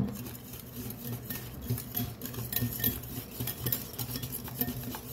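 Metal wire whisk beating egg and brown sugar in a ceramic bowl, its wires clicking and scraping against the bowl with each stroke, with a sharper knock right at the start.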